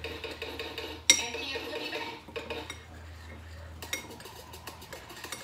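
A spoon scraping and clinking against a bowl as chopped ingredients are scooped in, with one sharp clink about a second in.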